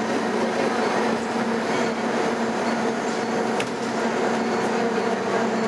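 A 2011 Nova Bus LFS city bus running, with road and drivetrain noise and a steady droning hum. There is one sharp click a little past halfway.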